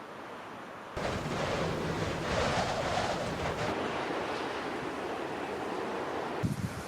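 Wind rushing, a steady noise that starts suddenly about a second in and drops away near the end.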